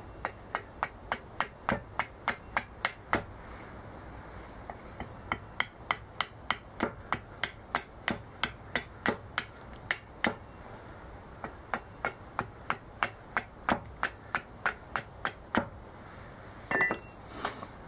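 Hatchet chopping the sides of a cherry plum spoon blank: quick, sharp strikes of the steel blade into the wood at about three a second, in three runs with short pauses between. A brief, different knock near the end.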